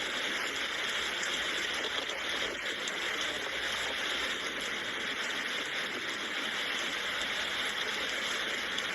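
Steady rain falling, a continuous even hiss with no let-up or separate drops standing out.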